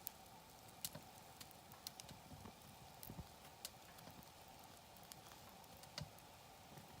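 Wood campfire crackling: irregular sharp pops and snaps, the loudest about a second in and another near the end.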